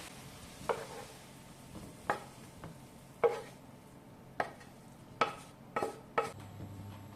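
Kitchen utensil clinking against a metal cooking vessel while food is stirred: about eight sharp knocks at uneven intervals, each ringing briefly.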